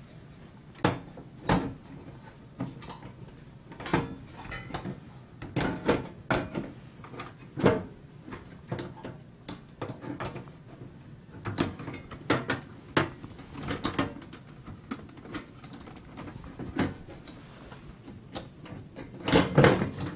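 Side cover of a Dell desktop computer case being handled and fitted onto the metal chassis: scattered clicks, knocks and scrapes, with a quick run of knocks near the end as it is closed.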